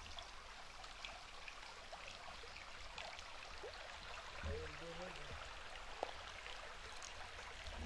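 Faint steady rush of running water with small scattered splashes and ticks, and a brief distant voice about halfway through.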